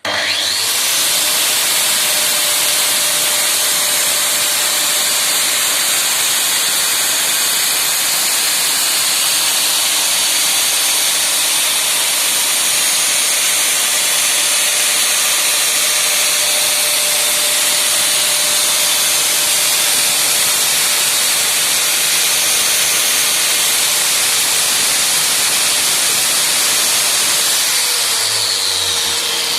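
Metabo wall chaser and a connected vacuum cleaner switching on together, with a quick rising spin-up, and running steadily. About two seconds before the end the chaser's tone winds down while the vacuum keeps running.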